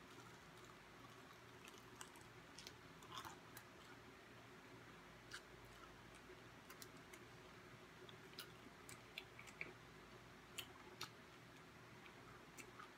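Faint chewing of crispy fried chicken wings, with scattered small clicks from the mouth and from handling the food.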